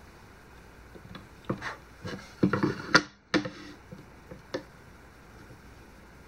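Chip carving knife blade cutting and scraping in a wooden board to clean up a chip: a run of short scrapes and clicks, loudest just before the middle, breaking off suddenly, then a couple of fainter ticks.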